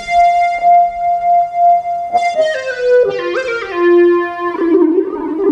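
Casio XW-G1 synthesizer playing a single-line lead patch, one of the player's own sounds meant to be soft and organic rather than piercing. It holds one note with a slow pulsing swell, then about two seconds in plays a quick run of notes stepping downward and settles on a long lower note.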